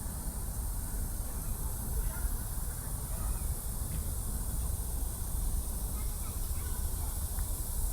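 Outdoor city-park ambience: a steady low rumble and hiss, with faint distant voices and a few small chirps.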